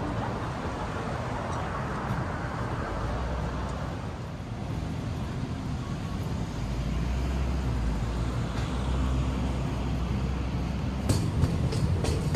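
Train running with a steady low rumble. Near the end a quick run of clacks starts, wheels passing over rail joints.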